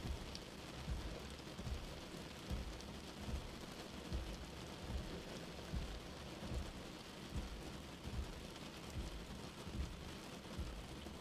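Steady rain on a car windshield, with regular low thumps a little under a second apart from slow-running windshield wipers.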